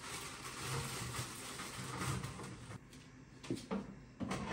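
Frozen French fries rustling and rattling as they are tipped into an air fryer basket, dying away after about two and a half seconds. A few light knocks follow near the end as the basket is handled.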